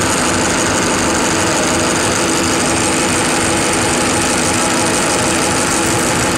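A conventional metal lathe running at steady speed with its chuck spinning: a constant, loud mechanical whir with a steady low hum.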